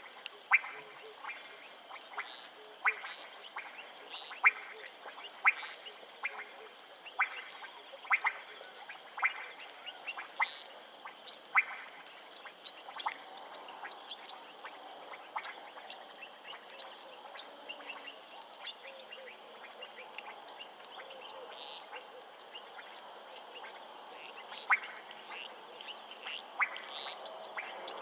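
Frogs calling from a marsh: short, sharp clicking calls about once a second, thinning out midway and picking up again near the end, over a steady high-pitched chorus.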